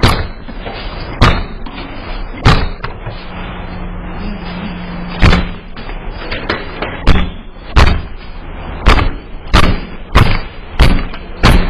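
A door taking repeated heavy blows: about a dozen loud thuds, slow at first and then coming faster, roughly every two-thirds of a second, near the end, as if someone is trying to force it open.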